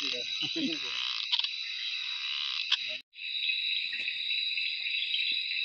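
A frog croaking in short, repeated pulsed calls during the first second, over a steady, high night chorus of rainforest insects. After a sudden cut about three seconds in, a different steady insect chorus continues with faint rustling.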